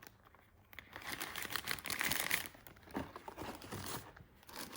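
Blind-box packaging crinkling and rustling as it is handled, in irregular scrapes and crackles, busiest about a second in.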